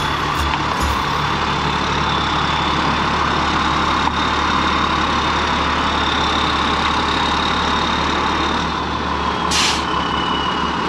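Heavy truck engine running steadily, with a steady high whine over it. Near the end comes a short hiss of released air, after which the whine drops a little in pitch.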